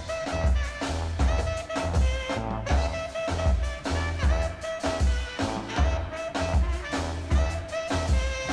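Recorded funk-jazz music playing from vinyl: an instrumental passage with a steady drum-and-bass beat and horns.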